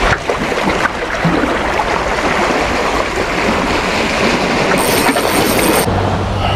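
Small waves washing over shoreline rocks under a loud, steady rush of wind on the microphone. About six seconds in it gives way to a steady low hum.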